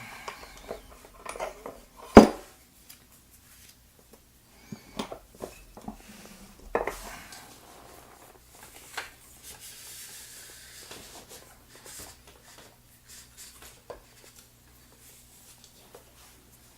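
Small metal lock parts and tools being handled on a work surface: scattered clicks and clinks, with a sharp knock about two seconds in and another about seven seconds in, then fewer, fainter sounds.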